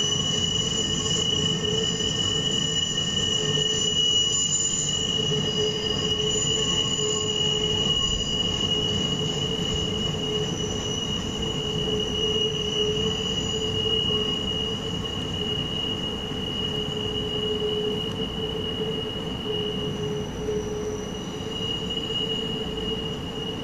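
Railroad wheel flanges squealing steadily against the rail as a Norfolk Southern maintenance-of-way camp train rounds a tight curve, a high, sustained squeal over the low rumble of the rolling train.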